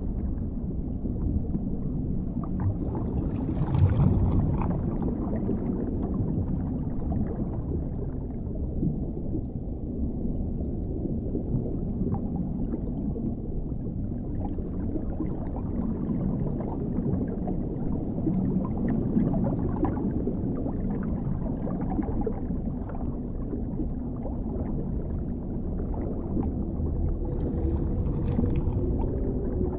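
Underwater ambience: a deep, steady rumble with faint crackling, swelling briefly about four seconds in. Near the end a long, low tone sets in.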